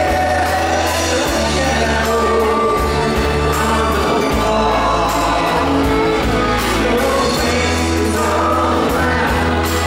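Live pop-rock band playing with several voices singing together over bass guitar, strummed acoustic guitars, keyboard and a steady drum beat.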